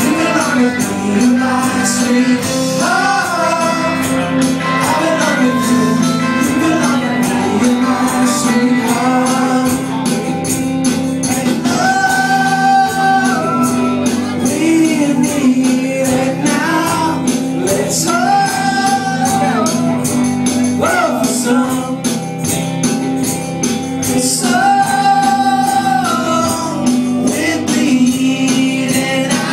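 Live band playing a song: a male singer holding long notes over guitar, bass and drums with a steady beat of cymbal hits.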